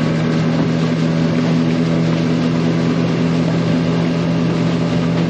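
A boat's motor running steadily at an even speed.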